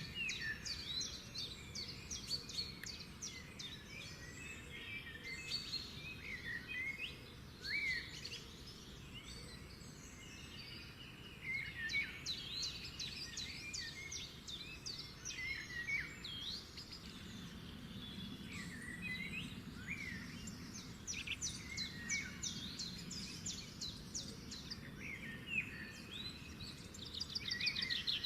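Many small birds chirping and calling together in a busy, continuous chorus of short chirps and quick rising and falling notes.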